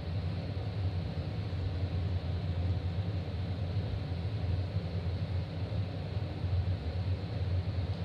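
Ventilation vent running: a steady low drone with an airy hiss above it.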